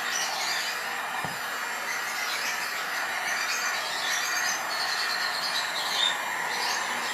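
Handheld electric dryer blowing a steady stream of air over freshly painted wood to dry the paint, with a continuous even whoosh.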